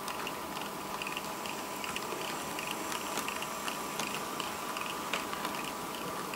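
TT-scale model steam locomotive running along the track with its freight train: a light, rapid, regular ticking from the running gear and wheels, over a steady hum.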